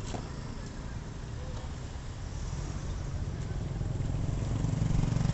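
Small motorcycle engine running close by, growing steadily louder as it approaches, over general street traffic noise.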